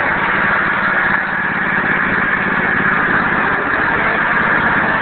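Cub Cadet garden tractor's engine running steadily as the tractor crawls over a rock ledge.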